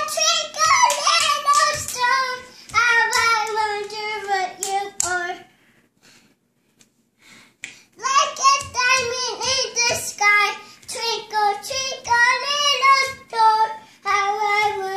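A toddler girl singing in a high voice. She breaks off about five seconds in and starts singing again a couple of seconds later.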